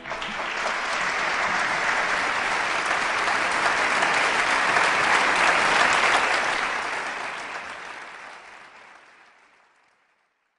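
Audience applauding at the end of an orchestral performance: the clapping builds over the first couple of seconds, holds, then fades out toward the end.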